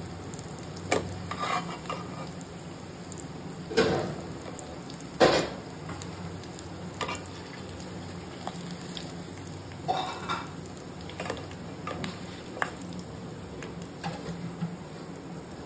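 Whole potatoes sizzling in hot oil in a pan, fried golden brown, while a spoon stirs them and knocks against the pan as they are lifted out. Under a steady sizzle there are several sharp clinks, the loudest about five seconds in.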